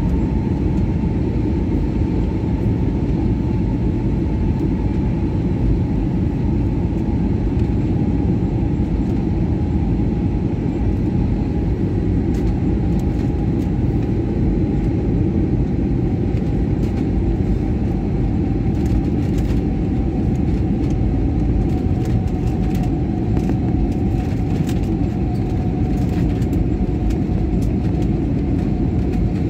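Jet airliner cabin noise on descent: a steady deep rumble of engines and airflow, with a whining engine tone that slowly falls in pitch.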